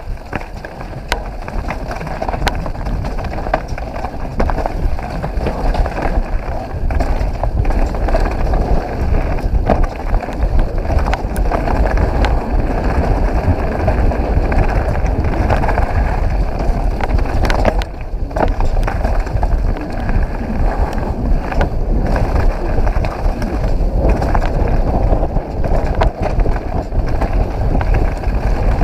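Mountain bike descending fast on a dirt trail covered in leaves: wind buffets the camera's microphone with a steady low rumble, and the tyres roll over dirt and leaves, with scattered sharp knocks and clatter from the bike over bumps.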